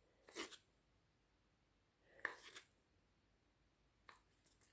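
Near silence, broken by a few faint, brief scrapes and taps of a wooden stir stick against a plastic cup as acrylic paint is mixed: one about half a second in, a small cluster a little after two seconds, and a tiny one near the end.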